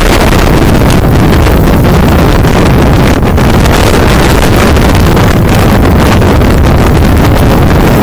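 Storm-force wind blasting straight onto the microphone: loud, steady wind noise with a deep rumble.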